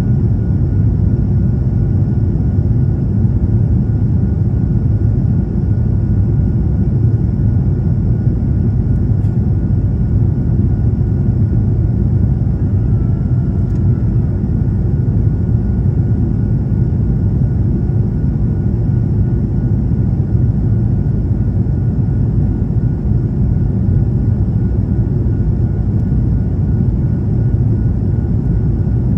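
Steady cabin roar of an Airbus A220-300 in flight, its Pratt & Whitney PW1500G geared turbofan engines and the airflow heard from a window seat as a deep even rumble with faint thin whines above it. A brief faint tone sounds a little before halfway.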